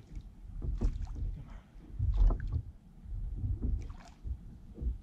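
A smallmouth bass being reeled in to an inflatable fishing boat: reel cranking and water sounds at the boat's side, with a few short knocks or splashes about a second apart, over a low rumble that comes and goes.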